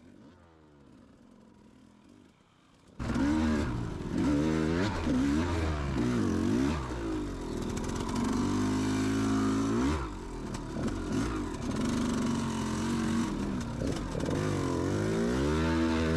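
KTM 200 XC-W's 200 cc two-stroke dirt-bike engine revving hard, its pitch climbing and dropping over and over with throttle and gear changes. It cuts in suddenly about three seconds in, after a faint start.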